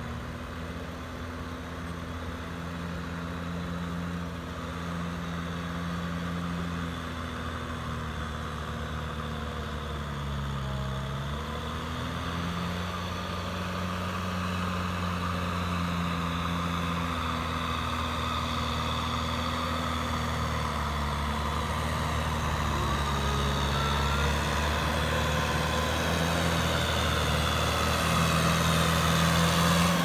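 Kubota M6040SU tractor's four-cylinder diesel engine running steadily under load while ploughing a flooded rice paddy, growing louder as the tractor comes closer. Its note sags briefly about a third of the way in, then recovers.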